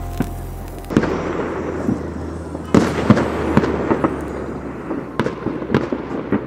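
Fireworks and firecrackers going off: a crackling hiss with many sharp bangs, the loudest about three seconds in.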